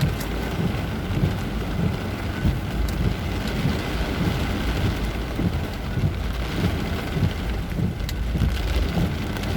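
Heavy rain pouring down, a dense steady patter of drops hitting surfaces.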